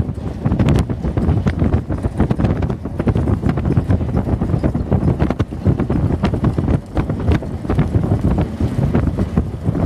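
Heavy wind buffeting the microphone over the rumble of the moving starting-gate vehicle, with the hoofbeats of a trotter pulling a sulky alongside coming through as irregular knocks.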